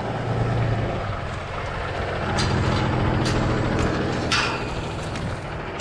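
A 16-ton single-axle wrecker's diesel engine running steadily as the truck drives, with three sharp knocks or rattles in the second half.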